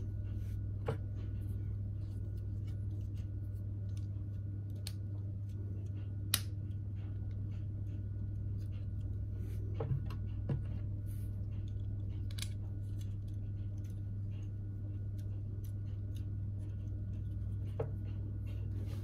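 Small plastic LEGO pieces being handled and pressed together while building the City sports car set: scattered sharp clicks and taps at irregular intervals, the strongest about six and twelve seconds in, over a steady low hum.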